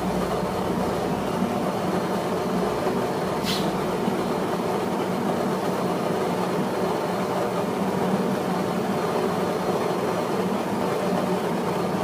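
Built-in coffee grinder of a Cafelffe EM653-3C espresso machine grinding beans steadily into the portafilter on a timed double-dose grind. A brief high-pitched sound comes about three and a half seconds in.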